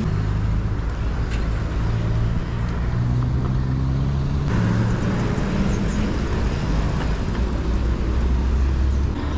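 A motor vehicle engine running close by, its pitch holding and then stepping up and down, over steady road and wind noise.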